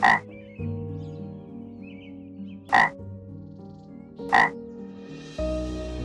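A frog calling: three short, loud croaks, the first right at the start and the others about three and four and a half seconds in. Under them are steady held tones that change pitch near the start and near the end.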